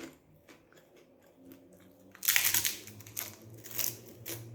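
Crunchy zero-shaped biscuit being bitten and chewed close to the microphone: a few short crunches begin about two seconds in.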